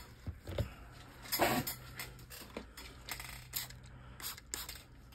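Light clicks, taps and knocks of a plastic tray holding a silicone dice mold being handled and set down, the loudest about a second and a half in.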